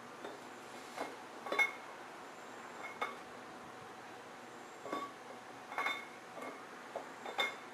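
Camshaft clinking lightly against the cam bearings and block as it is slid by hand into a 351 Windsor engine block: scattered small metallic taps with a short ring, the loudest about a second and a half in.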